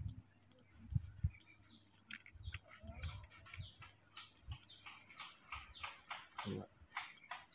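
A bird sings a fast series of short chirps, each falling in pitch, about two a second, starting about two seconds in and going on to the end. Soft low thumps come now and then, loudest near the start.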